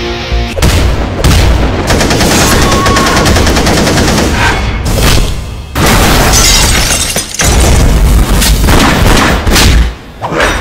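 Action-trailer soundtrack: loud music overlaid with rapid gunfire and boom effects, breaking off suddenly a few times.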